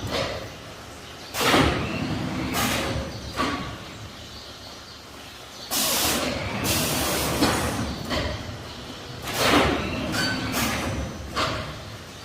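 Automatic bagging machine filling and packing 5 kg bags of barley in plastic, running in repeated cycles. About every four seconds there is a sharp burst of hissing noise followed by smaller clatters, over a steady machine running noise.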